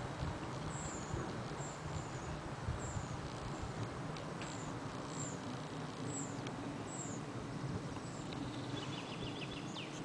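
Steady low rumble of a summer-bobsleigh sled being hauled uphill along its rail by the cable. Over it a small bird repeats short, high, falling chirps, with a quick rattling trill near the end.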